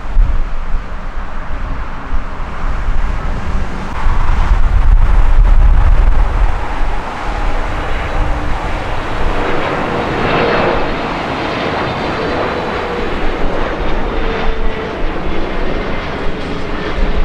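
Jet engines of a Boeing 777 freighter on landing: a rushing jet noise with a faint whine that swells to its loudest about ten seconds in and then slowly eases. A heavy low rumble comes a few seconds in.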